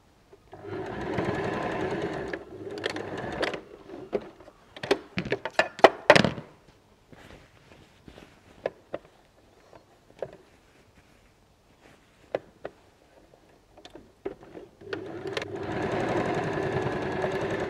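Electric sewing machine stitching across a corner seam in two short runs, one about a second in and one near the end. In between come sharp clicks and fabric handling noise as the bag is turned to the other corner, loudest about six seconds in.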